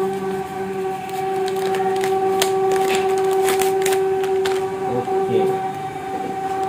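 Foam packing wrap and a foil anti-static bag crinkling as they are unwrapped and handled, a run of crackles and rustles from about one and a half to four and a half seconds in, over a steady hum.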